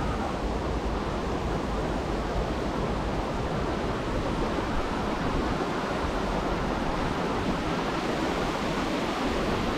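Steady rushing noise of wind and rain outdoors, with an uneven low rumble of wind buffeting the microphone.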